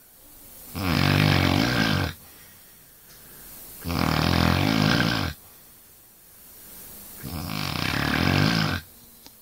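Snoring in a steady rhythm: three long snores about three seconds apart, each lasting over a second, with much quieter breathing between them.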